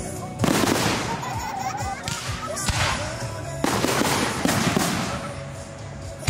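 Fireworks going off: a loud bang about half a second in, a smaller one near three seconds and another loud one a little after three and a half seconds, each trailing off in crackling.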